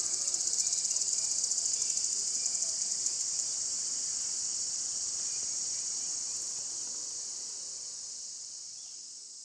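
A steady, high-pitched chorus of forest insects, rapidly pulsing for the first few seconds, then fading out over the last few seconds.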